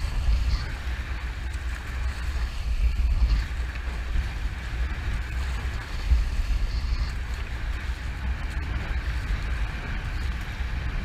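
Wind buffeting the microphone in a deep, uneven rumble, over the rush and splash of water along the hulls of a Nacra F18 catamaran sailing at speed.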